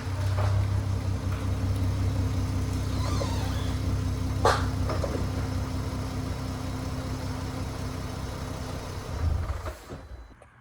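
Audi TT's 3.2-litre VR6 engine running steadily with a low hum, with two short sharp sounds over it; the engine sound drops away about ten seconds in.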